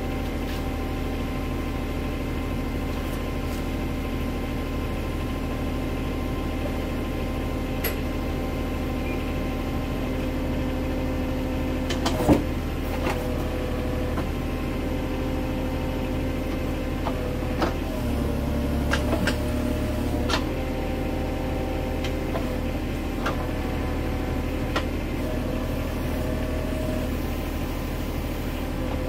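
Kubota KX-91 mini excavator's diesel engine running steadily, its hydraulic pitch shifting as the thumb and tilt bucket are worked through the auxiliary diverter circuit. A sharp metal clunk comes about twelve seconds in, with a few lighter knocks later.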